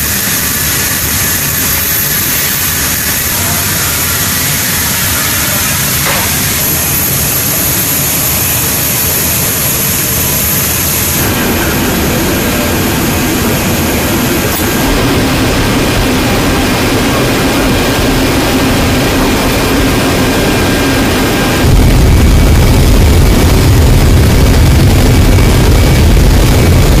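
C-17 Globemaster III's four Pratt & Whitney F117 turbofan engines, heard from inside the aircraft: a steady jet whine and rumble that changes tone a couple of times, then steps up suddenly to a louder, deeper rumble about three quarters of the way through.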